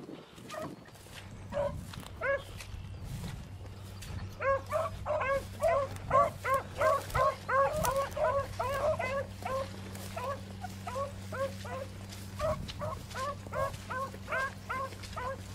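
Beagles baying on a rabbit track: short, ringing yelps, a few scattered at first, then about four seconds in several hounds give tongue together in a fast, overlapping chorus that thins out toward the end.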